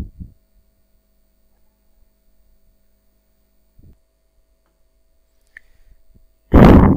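Near silence with a faint steady hum, broken near the end by a short, loud burst of noise lasting about half a second.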